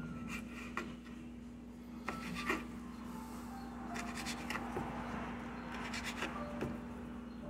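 Knife cutting raw beef steak into cubes on a bamboo cutting board: short scrapes and knocks of the blade against the board at irregular intervals, over a steady low hum.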